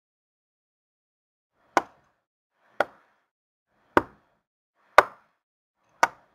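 Five short, sharp knock sound effects, about one a second. Each marks a dot of a cartoon ellipsis popping up, a comic awkward-pause cue.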